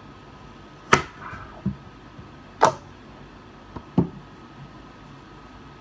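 Knife being pressed through a large zucchini and knocking down onto a thin plastic cutting board: several short, sharp knocks, two of them louder.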